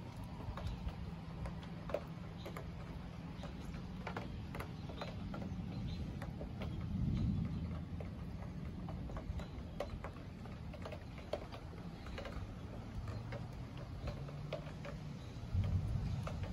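A low steady rumble with a faint hum, swelling about seven seconds in and again near the end, under scattered, irregular light ticks and taps.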